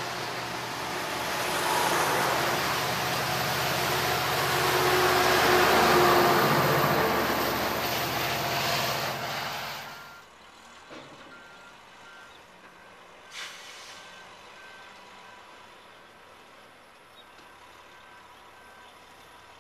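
Amtrak Pacific Surfliner bilevel passenger cars rolling past close by: a steady rumble and wheel noise that swells to its loudest about six seconds in. The sound cuts off abruptly about ten seconds in, leaving faint background noise.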